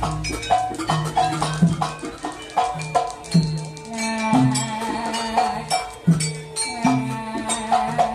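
Traditional Javanese jaranan ensemble playing live: a steady rhythm of short pitched struck notes over drums and rattling percussion.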